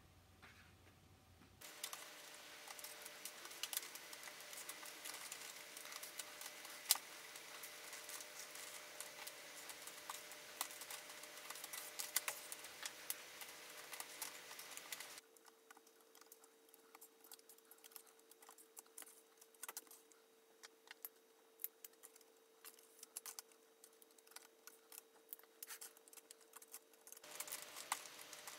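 Irregular small plastic clicks and rattles of LEGO Technic parts of a hand-guided drawing device sliding and shifting, with a felt-tip pen drawing on paper; one sharper click about seven seconds in.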